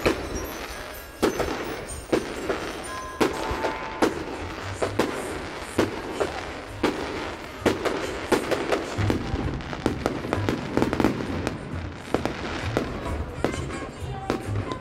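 Fireworks display: aerial shells bursting in an irregular series of bangs, about one or two a second, over continuous crackling.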